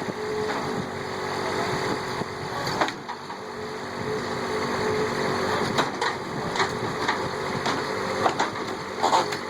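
A small engine or motor running steadily, with a scattering of short sharp knocks over it.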